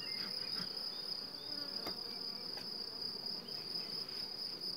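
Insects trilling in the grass, a steady high-pitched buzz that never lets up, with a single soft click about two seconds in.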